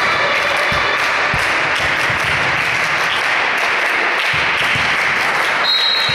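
Steady applause and crowd noise in an echoing sports hall during a volleyball match, with a few dull thuds in the first couple of seconds and a brief high steady tone near the end.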